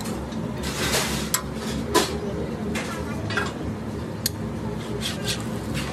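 Metal spatula scraping and clinking against a flat griddle under a dosa, a few sharp clinks with the loudest about two seconds in, over a steady background noise.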